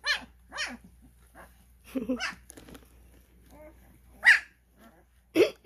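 Twelve-day-old Cane Corso puppies whining and squealing: a string of short, high calls that each slide down in pitch, the loudest about four seconds in.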